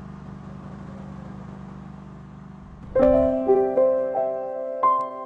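A steady low hum, then about three seconds in a Yamaha grand piano starts playing a slow melody, each note entering distinctly and ringing on.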